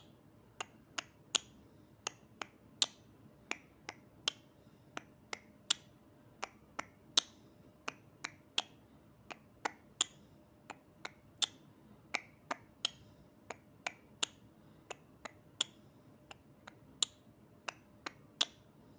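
Sharp clicks, about two a second in an uneven rhythm, over a faint steady hum.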